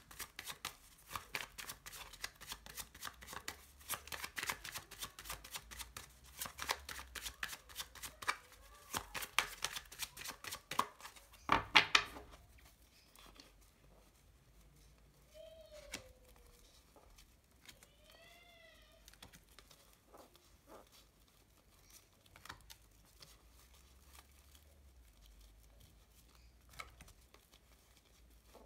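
Small Lenormand deck shuffled by hand: a rapid, continuous patter of cards flicking against each other for about twelve seconds, ending in a louder flurry. The rest is quieter, with sparse soft taps as cards are laid down on the table.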